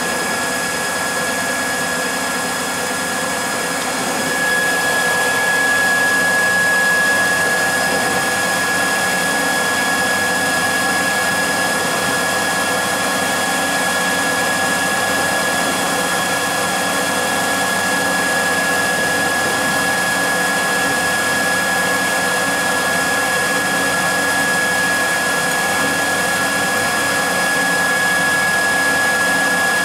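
Haas TL-1 CNC toolroom lathe running a programme, its spindle turning at about 1,400 rpm. A steady motor drone with a high-pitched whine that becomes louder about four seconds in.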